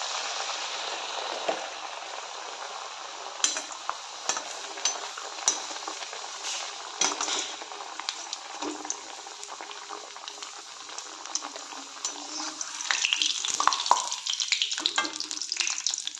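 Potato kachori deep-frying in hot oil in a kadhai: a steady sizzle, with sharp clicks of a slotted metal spoon against the pan every second or so. The sizzle grows louder and more crackly a little before the end.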